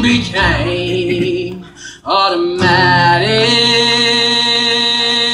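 A male singer with an acoustic guitar performs live, singing a line and then holding one long note from about two seconds in, over strummed guitar.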